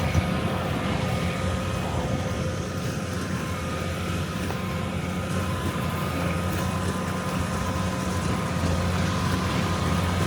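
Heavy farm machinery running steadily at work: a constant low diesel engine hum with a few faint, steady whining tones above it.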